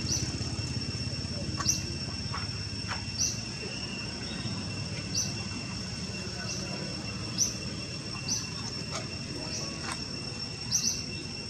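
Insects chirring steadily in a high, unbroken drone, with a short high chirp repeating about every one to two seconds.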